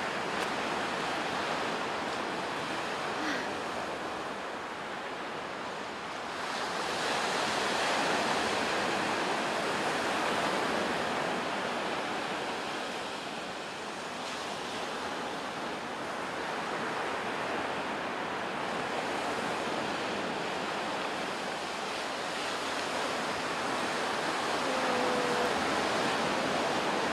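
Surf breaking on a sandy beach: a steady wash of noise that slowly swells and eases over several seconds.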